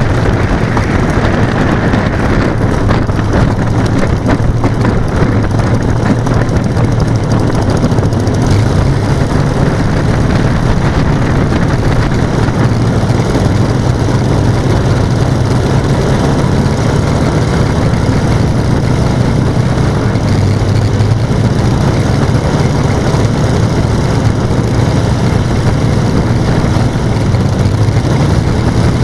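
Engines of a radio-controlled Boeing B-17G model running steadily, a constant low hum.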